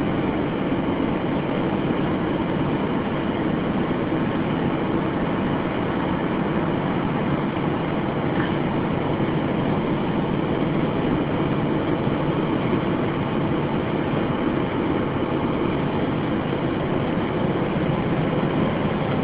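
Car driving at a steady speed on an open road: a steady rush of tyre, engine and wind noise.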